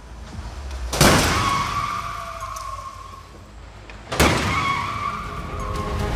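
A heavy moving crash barrier slamming into the side of a Kia Forte sedan in a side-impact crash test. It is a loud crunching bang followed by metallic ringing that fades over a couple of seconds, heard twice about three seconds apart.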